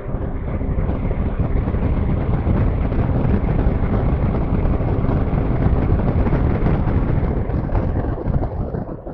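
Jet ski running at speed across open water: a loud, dense rush of wind buffeting the camera microphone and water spraying off the hull. It grows louder about a second in as the jet ski picks up speed and eases slightly near the end.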